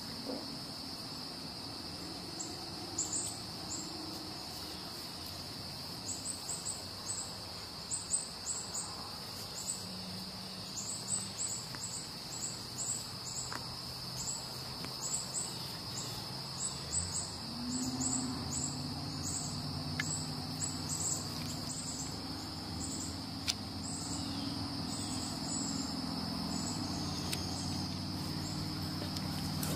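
Steady, high-pitched insect drone with quick chirps repeating over it. A low steady hum comes in about halfway through.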